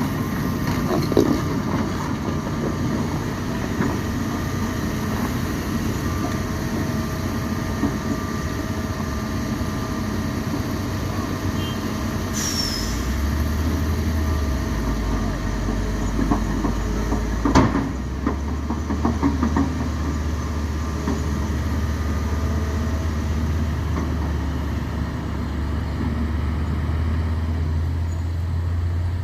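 Heavy diesel truck engine running steadily, with a low drone that grows stronger about halfway through and a single sharp click a little after that.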